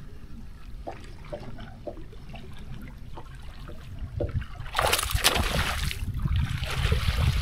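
Water splashing: a few small drips and trickles, then two loud bursts of splashing in the last third.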